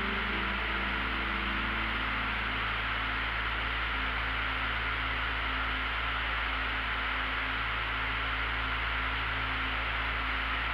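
Steady drone of a light aircraft in flight, engine and propeller noise heard inside the cockpit, with faint music fading out in the first second.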